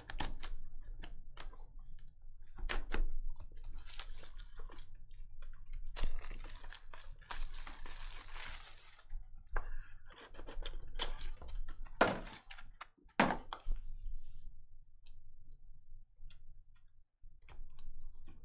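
Hands opening a sealed trading-card hobby box: plastic wrap crinkling and cardboard and plastic handled, with scattered clicks and taps. A longer crinkling stretch comes in the middle, and two sharper knocks come about two-thirds of the way through.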